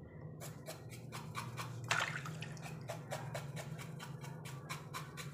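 Water dripping and splashing into a bucket as a cow's snout is rubbed and scraped clean by hand. It comes as a quick run of small wet clicks and drips, about four or five a second, with one louder splash about two seconds in.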